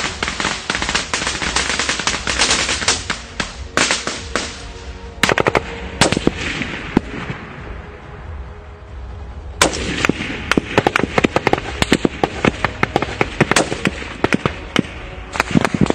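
Small-arms gunfire in a firefight: rapid automatic fire with many overlapping shots. It thins to scattered shots and a short lull around the middle, then heavy rapid firing resumes.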